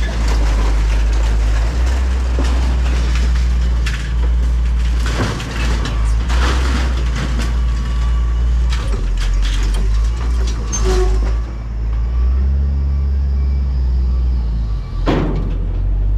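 Heavy equipment engine running with a steady low rumble, with scattered clanks and knocks of scrap metal.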